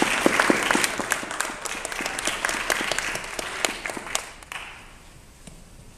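Audience applauding, dense at first, then thinning to scattered claps and dying away about four and a half seconds in.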